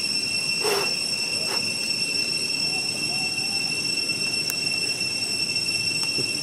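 Steady, high-pitched insect drone from the surrounding forest, holding one even pitch, with two brief noises about a second apart near the start.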